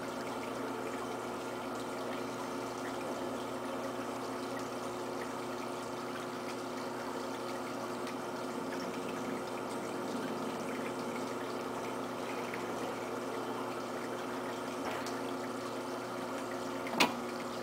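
Potter's wheel spinning steadily under a large earthenware pot being thrown, a constant whir with a hum of several fixed tones. A single sharp click near the end.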